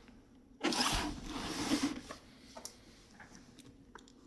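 Cardboard toolbox packaging rubbing and scraping as it is handled and turned, a scratchy rustle of about a second and a half, followed by a few faint clicks.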